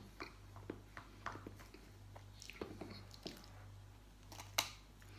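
Close-up eating sounds: a metal spoon clicking and scraping in a plastic tray of soft tiramisu, with wet chewing and smacking between spoonfuls. One sharper, louder click comes about four and a half seconds in, over a low steady hum.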